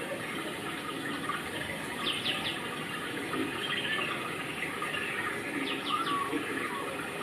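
Steady rush of running water, with a small bird giving quick high chirps twice, about two seconds in and again near six seconds.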